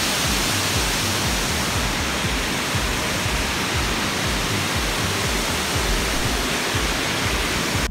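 Steady rushing noise of water pouring through the dam, with wind buffeting the microphone.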